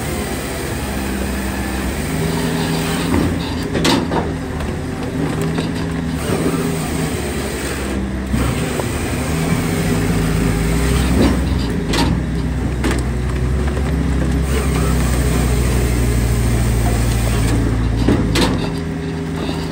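A Timberwolf Pro HD XL firewood processor running steadily, its engine and hydraulics droning, while split firewood tumbles off the conveyor onto the pile with loud wooden knocks and clatters several times. About halfway in a deeper drone sets in and holds for about eight seconds, as the machine works under heavier load.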